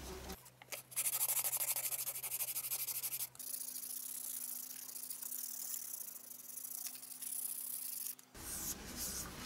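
Hand sanding with 180-grit sandpaper over polyester steel-putty filler on a wheel rim: quick, even back-and-forth scratching strokes, changing abruptly about three seconds in to a steadier scratching hiss.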